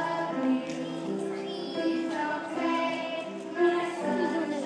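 A group of young children singing a song together, holding notes that step up and down in a simple tune.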